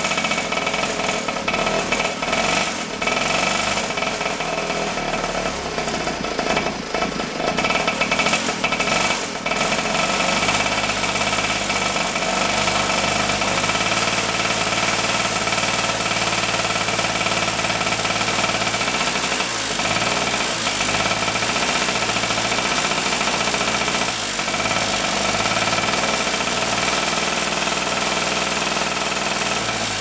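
1942 aircraft auxiliary-power-unit engine, mounted on a bicycle, running while its carburetor is adjusted by hand. It runs choppy and uneven for about the first ten seconds, then settles into a steadier beat. The engine was built to run at a fixed 2800 rpm and never idle, and it runs poorly at other speeds.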